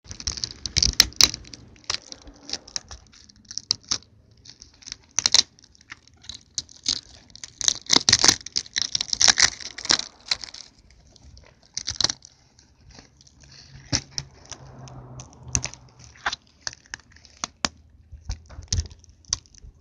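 Clear plastic tape being peeled and crumpled off the joint of a taped model airplane wing: irregular crinkling and crackling with many sharp ticks.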